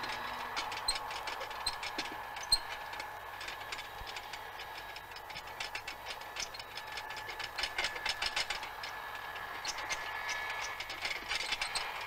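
A train of wheeled baggage carts rattling and clattering as a small baggage tractor tows them, with a steady high whine underneath.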